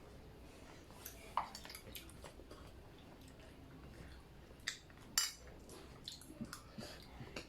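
Quiet eating sounds: scattered light clicks and clinks of cutlery against a plate, the loudest about five seconds in.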